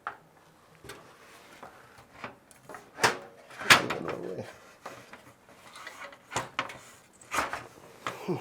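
Irregular clicks and knocks of an AIO cooler's radiator being worked into place in the front of a PC case; the loudest knock comes a little under four seconds in.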